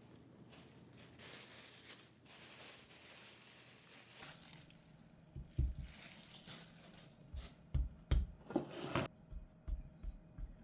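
Kitchen handling sounds while baking: a crinkly rustle, as of wrap or paper being handled, then from about halfway a run of soft low knocks, a few a second.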